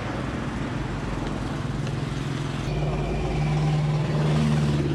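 Road traffic noise, with a motor vehicle's engine hum growing louder from about three seconds in.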